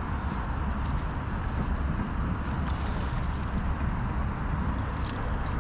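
Steady low rumble of wind buffeting the microphone outdoors, with a few faint ticks near the end.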